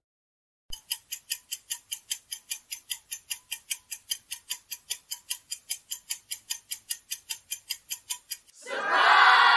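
Clock-tick sound effect for a quiz countdown timer, ticking steadily about four times a second for several seconds. Near the end it stops and a short, loud burst of cheering voices follows.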